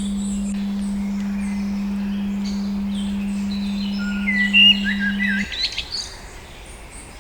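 Steady 200 Hz pure tone with birds chirping and singing over it. The tone stops about five and a half seconds in, and a busy flurry of chirps just before that leaves only the birdsong.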